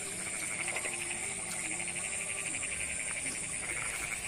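Night chorus of insects and frogs: a rapidly pulsing trill and a steady high-pitched buzz.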